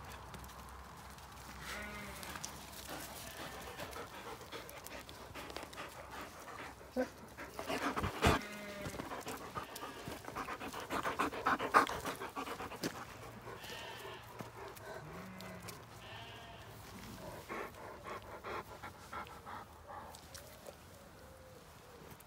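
Dogs panting close by as they crowd round and are patted, with paws and feet scuffing on gravel and a few short animal calls. Two sharp knocks, the loudest sounds, come about eight and twelve seconds in.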